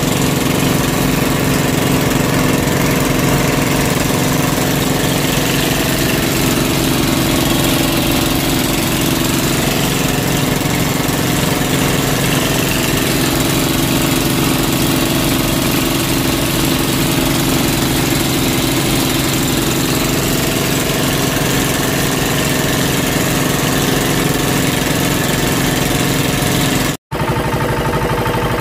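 Boat engine running steadily at an even pitch, with a momentary break near the end.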